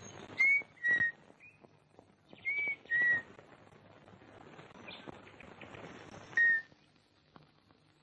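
A high, pure whistled call of two short notes, the first arching slightly, the second flat and a little lower. It comes once about half a second in and again about two and a half seconds in, and a single note follows near the end, all over a steady hiss with faint crackles.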